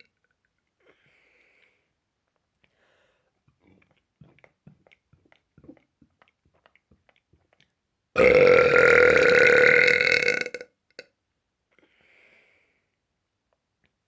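A person belching one long, loud burp of about two and a half seconds at a steady pitch, starting a little past the middle. It follows a few seconds of faint mouth clicks.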